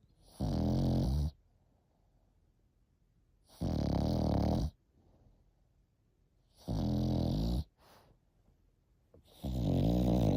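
French Bulldog puppy snoring: four rattling snores, each about a second long, coming about every three seconds with quiet breaths between.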